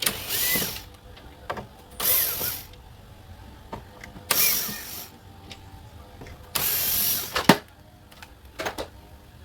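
Cordless screwdriver backing out the screws of an autogate control box cover: four short runs, each under a second and about two seconds apart. A sharp click comes at the end of the last run.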